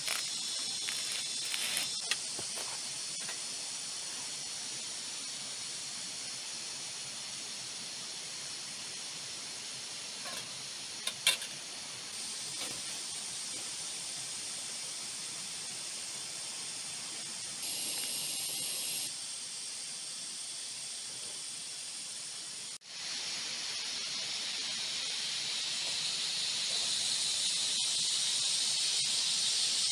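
Steady, high-pitched hiss of a rainforest insect chorus, with a sharp click about eleven seconds in. It breaks off for an instant after about 23 seconds and comes back louder.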